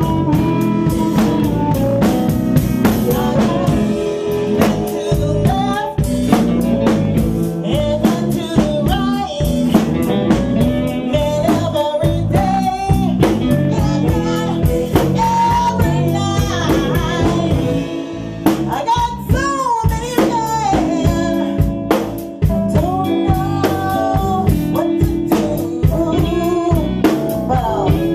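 Blues band playing live: electric guitar and drum kit, with a woman singing lead over them.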